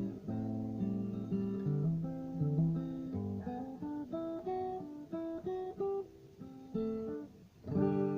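Allegro acoustic guitar played in G: strummed chords give way to picked single-note runs, then after a brief pause a full chord rings out near the end. Its strings are rusty and due for replacement.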